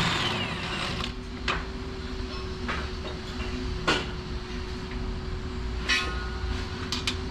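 A few sharp metal clicks and clinks, one with a short ring about six seconds in, from a hand tool working a bolt on a car's rear suspension, over a steady low hum.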